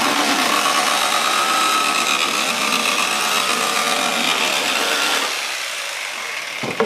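Corded jigsaw cutting through the wall of a plastic bucket, the blade running steadily. It grows quieter in the last second or so as the cut finishes, with a couple of sharp clacks near the end.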